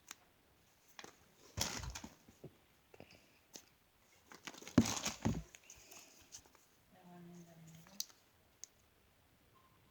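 Handling noise as squishy toys are picked up and turned over: two short bursts of crinkling rustle with scattered light taps and clicks.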